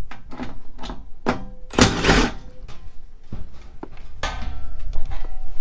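Scattered taps and clunks of a thin sheet-metal panel being handled and screwed in place, with a short louder burst of noise about two seconds in.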